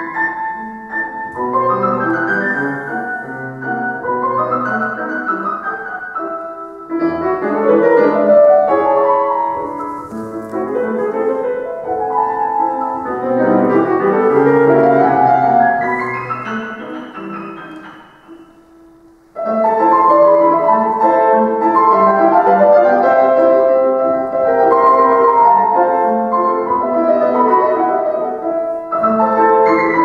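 Classical solo piano on a concert grand: sweeping rising runs and arpeggios that fade almost away about 18 seconds in, then a sudden loud entry of full, dense chords.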